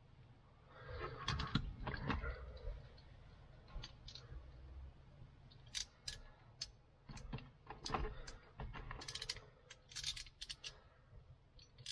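Hands working wires in a car's wiring loom while splicing them together: rustling and rattling of the wire bundle for the first couple of seconds, then a string of sharp small clicks and ticks from the wires and small tools through the second half.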